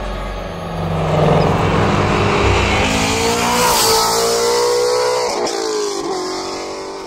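Shelby GT350R's flat-plane-crank V8 revving as the car drives hard, the engine pitch climbing, dipping briefly about five and a half seconds in, then fading near the end.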